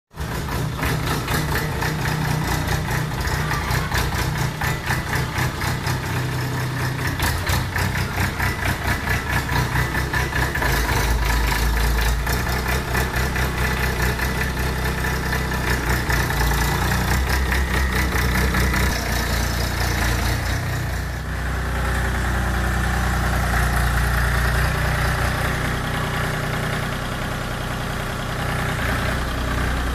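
Eicher tractor's diesel engine idling with a steady, rapid clatter of firing pulses. The engine note deepens and grows stronger about ten seconds in, and shifts again a little after twenty seconds.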